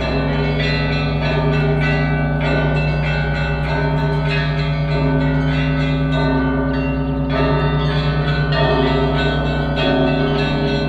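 Russian Orthodox church bells rung together: small bells struck in quick patterns over the steady hum of a large bell. This is the ringing before the Gospel reading.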